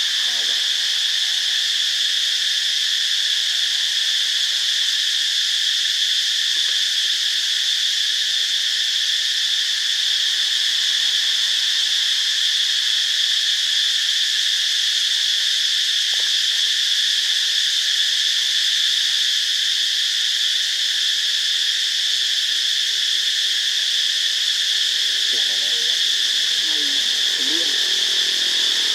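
Steady, high-pitched chorus of insects such as crickets or cicadas, droning without a break.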